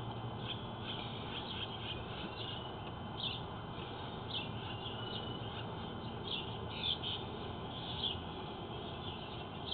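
Small birds chirping in short, irregular high calls, over a steady low background hum.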